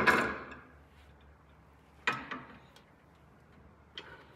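Metal clanks and clicks of an adjustable sway bar end link being handled and maneuvered into place on the front suspension: a loud clank at the start, another about two seconds in, and a couple of light clicks near the end.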